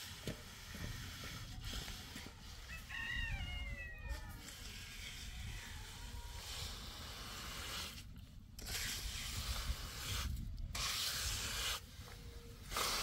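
A steel hand trowel scraping and smoothing wet concrete, a rough hiss that comes in stronger strokes in the second half. A rooster crows once, about three seconds in.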